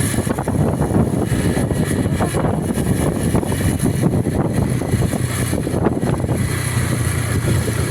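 Bus running with a steady, dense low engine and road rumble; no horn is sounding.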